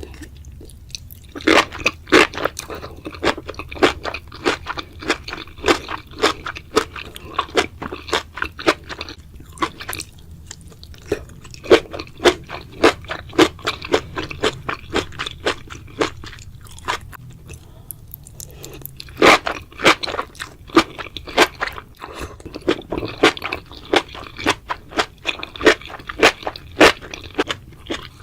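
A person chewing a mouthful of crunchy mushrooms close to the microphone: rapid, sharp crunches several times a second, with two short lulls.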